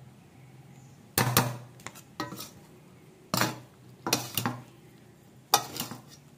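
A metal spoon and wooden spatula tossing fried noodles in a stainless steel pot, clinking and scraping against its sides in five short bursts about a second apart.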